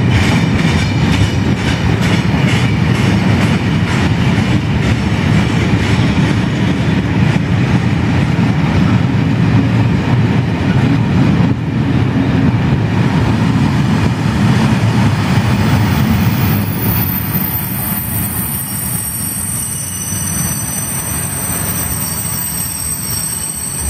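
Freight train wagons rolling past close by: a heavy rumble with a steady clatter of wheels over rail joints. After about 15 s the rumble eases as the end of the train passes, and a high metallic squeal of several tones, wheels on rail, comes in and holds.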